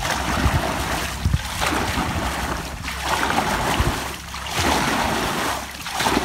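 A wooden paddle being beaten and churned through shallow, muddy water, splashing and sloshing in surges about every second and a half, with a few low knocks among them.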